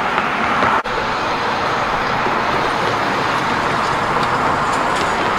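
Steady hiss of passing road traffic, with a brief dropout a little under a second in.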